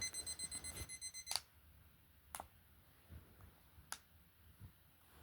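Digital alarm clock beeping rapidly, about six beeps a second, cut off by a sharp click about a second and a half in. Two more sharp clicks of its buttons follow.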